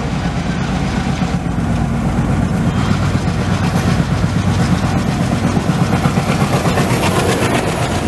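Two coupled WDM-3D diesel-electric locomotives, ALCo-engined, passing at speed at the head of a passenger train. The deep engine drone grows louder over the first few seconds as they approach, with wheels clattering on the track.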